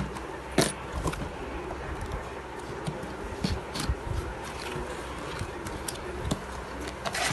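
Watch packaging being cut open and handled: scattered sharp clicks and scrapes of cardboard and plastic over a steady low hum.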